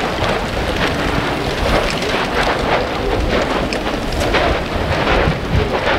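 Advancing basalt lava flow front crackling, with many small sharp cracks over a steady noise. Wind buffets the microphone.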